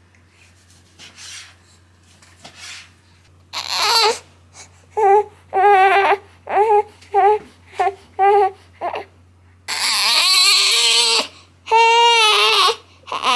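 One-month-old baby crying. The crying starts about three and a half seconds in as a run of short, wavering cries and builds into longer, louder wails. It is a hungry cry from a baby three hours past its last feed.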